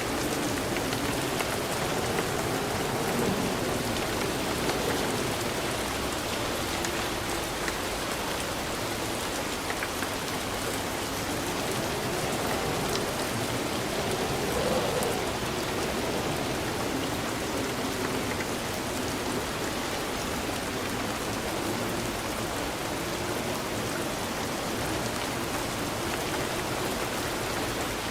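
Steady rainfall, an even hiss of rain on surfaces with scattered drops.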